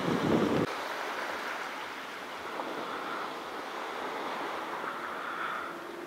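Wind gusting on the microphone with a low rumble that drops away under a second in, then a steady hiss of wind and small waves washing on a calm sea.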